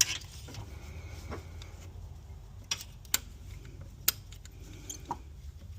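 A few sharp metallic clicks and taps, spread irregularly over several seconds, from a hand tool working at the quick-connect clips on oil cooler lines, over a steady low hum.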